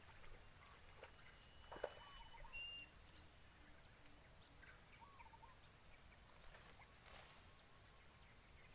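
Faint open-air ambience: a steady high-pitched insect drone, a few short bird chirps, and one sharp click about two seconds in.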